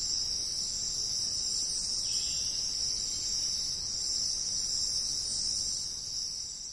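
Steady high-pitched insect trill, one continuous shrill tone that holds without a break.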